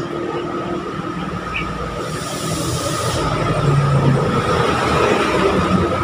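Steady road traffic noise: the rumble and tyre noise of passing vehicles, with a brief hiss about two seconds in.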